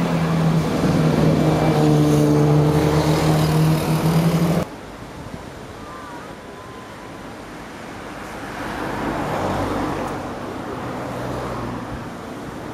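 Helicopter flying low with a steady pitched engine and rotor tone. It cuts off abruptly after about four and a half seconds, and a much quieter, distant aircraft engine drone follows and swells briefly.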